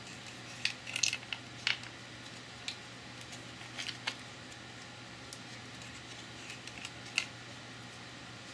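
Scattered light clicks and knocks of a plexiglass controller panel and its network cables being handled and lifted off a machine frame, over a steady low hum.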